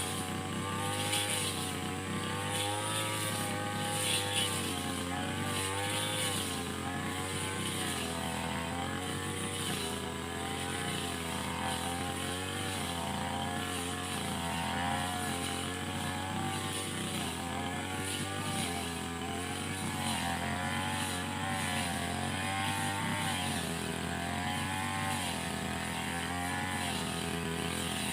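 Brush cutter engine running steadily while cutting grass, its pitch rising and falling slightly every second or two as the load changes.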